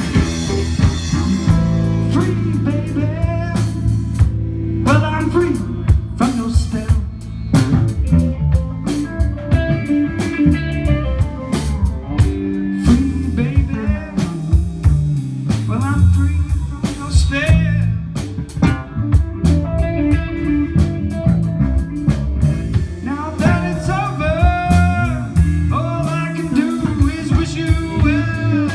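Live blues power trio playing: an electric guitar plays lead lines with string bends over bass guitar and a drum kit keeping a slow, steady groove.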